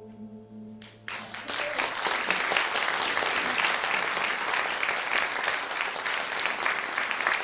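The last held notes of the accompaniment die away, then audience applause starts about a second in and continues steadily.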